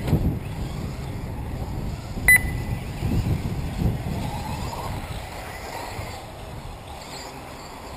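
Radio-controlled off-road racing cars running faintly on a dirt track, with occasional thin rising and falling motor whines, over a low rumble of wind on the microphone. One short, sharp electronic beep sounds about two seconds in.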